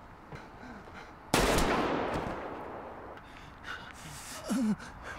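A single loud gunshot in a TV drama's soundtrack, about a second in, with its echo dying away over about two seconds.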